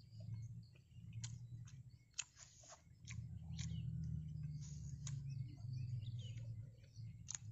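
Birds chirping faintly over a low, gusting rumble of wind on the microphone, with a few short rustles and clicks of something being handled.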